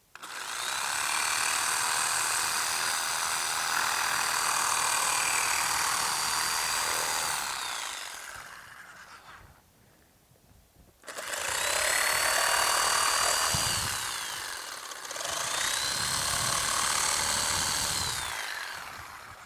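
Electric power saw running three times: each run spins up, cuts steadily and winds down. The first run lasts about seven seconds and the next two about three seconds each, with short pauses between.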